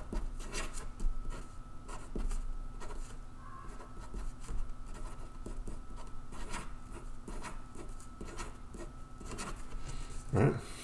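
Marker pen scratching on paper in short, irregular strokes while writing letters and drawing circles around them.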